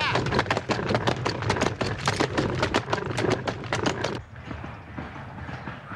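Horse-drawn carriage driven fast: a rapid clatter of hooves and wheels. About four seconds in it drops to quieter, sparser hoofbeats.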